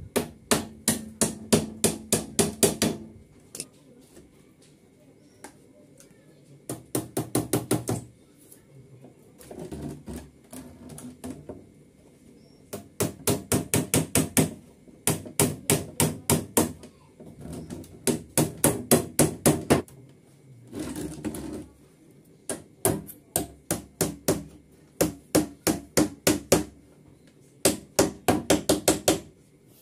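Small nails being tapped into thin plywood over a wooden frame, struck with a pair of pliers used as a hammer: quick runs of light taps, about four a second, in bursts of a few seconds with short pauses between.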